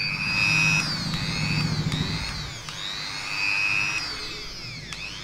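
Pro Cut Hero electric rotary tool running with no bit cutting, a high whine whose pitch rises and falls several times, then fades near the end.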